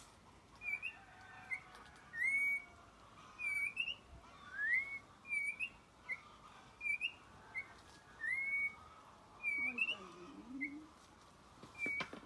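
A toche, a Colombian oriole, giving short whistled notes over and over, about one a second, several of them longer rising slurs.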